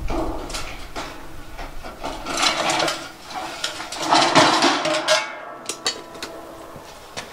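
Thin painted steel trim being handled on a concrete floor: metallic clattering and scraping with a light ringing, loudest about two and a half seconds in and again around four to five seconds in.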